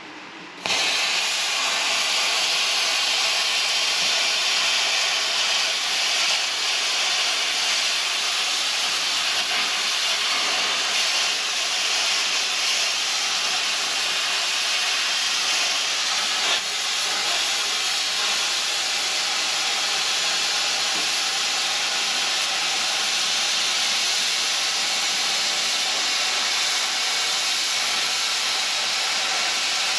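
Plasma cutter arc starting about half a second in and hissing steadily as the torch cuts through a car's rusty sheet-steel floor pan.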